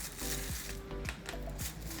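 Background music with a steady beat: a deep bass, held chords and a kick drum about twice a second.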